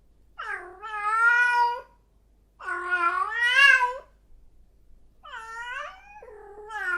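A domestic cat meowing: three long, drawn-out meows, the last one dipping in pitch partway through.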